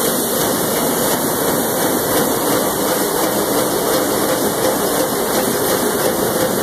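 Sakurai 472 ED II four-colour sheet-fed offset printing press running: a loud, steady mechanical din with no changes.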